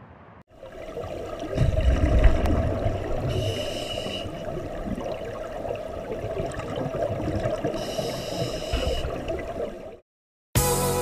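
Scuba diver breathing underwater through a regulator: a steady bubbling rumble of exhaled air, with two hissing inhalations through the regulator about three and eight seconds in. The sound cuts off suddenly about ten seconds in.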